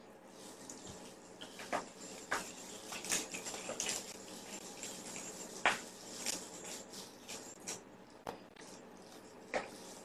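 A kitten scuffling with a fabric kicker toy held by a hand: irregular soft taps, scratches and rustles, the sharpest about halfway through, over a faint hiss.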